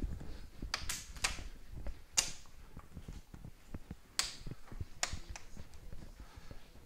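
A cloth wiped across a whiteboard in short strokes, heard as a handful of sharp scuffs and clicks spaced about a second apart over a low rumble.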